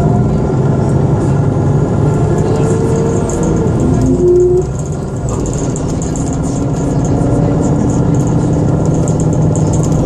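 Bus engine and road noise heard from inside the moving bus, a loud steady hum, with a brief pitched whine that glides up and then holds about four seconds in.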